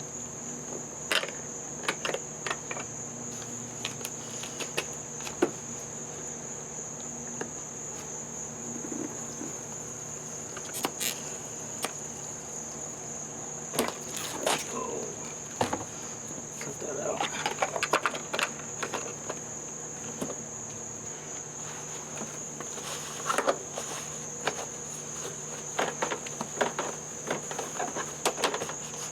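Insects chirping outdoors in a steady, high-pitched chorus, with scattered clicks, knocks and short rattles of things being handled.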